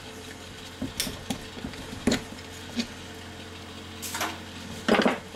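Screwdriver prying and scraping at the cast aluminum housing of a dishwasher's electric motor: several sharp metal clinks and knocks, the loudest near the end.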